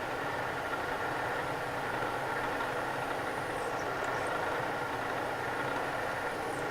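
Bridgeport vertical milling machine running steadily with a center drill in the spindle, cutting a starter centre in the side of a round shaft; a constant hum with a few fixed high tones.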